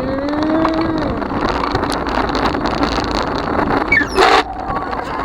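Bicycle being ridden, with wind buffeting the microphone and a steady rushing rattle. A short wavering tone sounds near the start, and a loud brief noisy burst comes about four seconds in.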